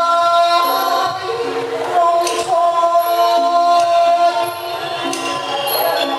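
Thai singing: a long held, sliding vocal line over instrumental accompaniment, with a few sharp percussion strikes.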